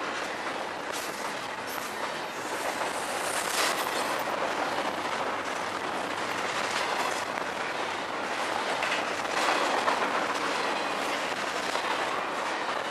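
Double-stack container well cars rolling past on the rails: steady wheel-on-rail noise, with scattered louder clacks as the wheels pass over the track, the loudest about four seconds in and again near ten seconds.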